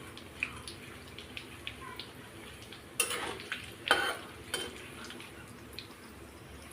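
Whole spices frying in hot oil in a kadhai with a faint sizzle, and a spoon knocking and scraping against the pan a few times, loudest between about three and four and a half seconds in.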